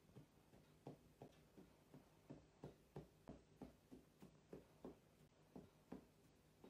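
Dachshund gnawing on a chew, a run of faint chomps at about three a second.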